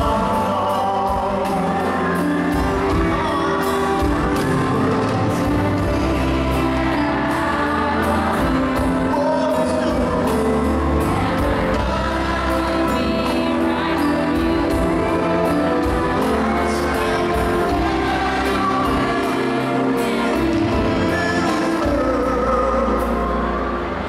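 Live duet: a woman and a man singing into microphones over band accompaniment.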